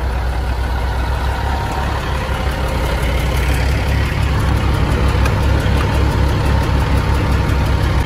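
Large straight truck's engine idling steadily, heard close to its exhaust pipe.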